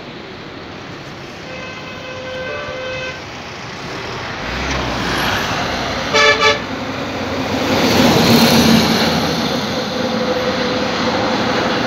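Road traffic passing: a vehicle horn sounds faintly about two seconds in, then a loud short double toot about six seconds in, followed by engine and tyre noise swelling to its loudest a couple of seconds later as vehicles including a truck drive by.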